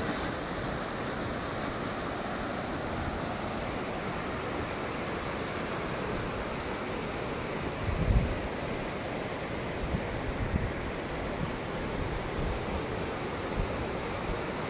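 Steady rush of a river in spate after a flood. A few low buffets of wind hit the microphone, the strongest about eight seconds in.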